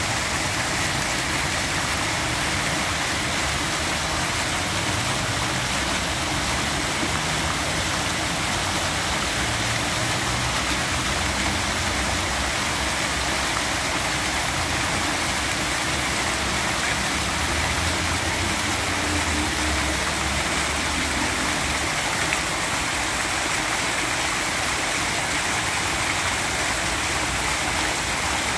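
Fountain water jets splashing and falling into the pool: a steady, unbroken rush of water.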